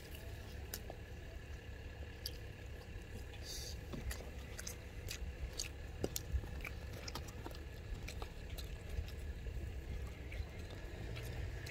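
Quiet eating: chewing and scattered small clicks of wooden chopsticks picking at grilled anchovies on a paper plate, over a steady low rumble.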